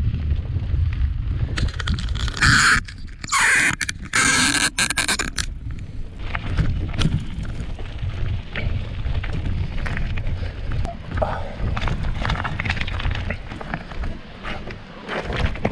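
Bicycle ridden down a trail, with wind rumbling on the microphone, scattered clicks and rattles, and two loud hissing bursts about three and four seconds in.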